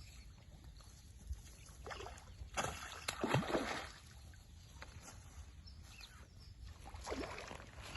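Water splashing and sloshing in a few short bursts, the biggest about three seconds in, over a low rumble.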